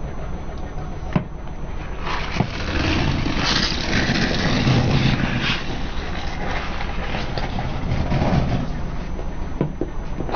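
Car tyre rolling over plastic Mentos gum bottles on asphalt, cracking and crushing them with a few sharp snaps and then a long crackling crunch, over the low steady hum of the car's engine.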